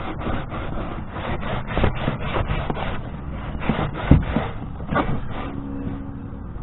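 A scrap of carpet scrubbed hard back and forth over a plastic kayak hull in quick, even strokes, about four a second, rubbing off dirt and grime. The strokes ease off near the end.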